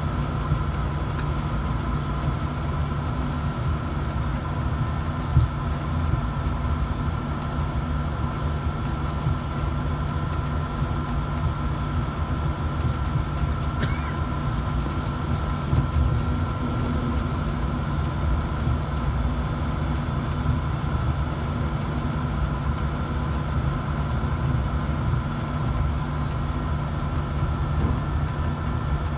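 Cabin noise of a jet airliner taxiing: a steady low engine rumble with a thin, constant high whine, and a couple of brief knocks along the way.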